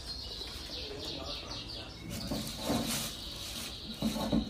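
Canary singing: a fast run of repeated high chirps, then a longer steady trill from about halfway through. A few soft handling noises come through as butter is squeezed and packed by hand.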